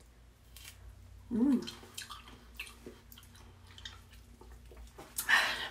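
Mouth sounds of someone eating salted lime pulp: small wet chewing clicks and squishes, a short hummed sound about a second and a half in, and a louder noisy burst near the end.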